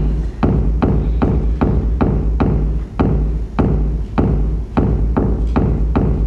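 Music with a steady deep bass drone under an evenly spaced percussive hit, about two a second.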